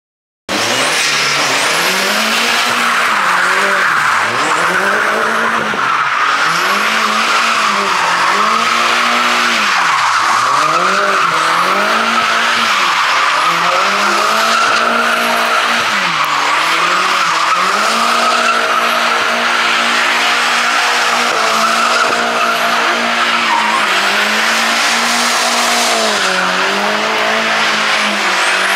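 A car engine revving hard, the revs swinging up and down every second or two, over a continuous tyre squeal as the rear tyres spin in a smoky burnout. It starts suddenly about half a second in.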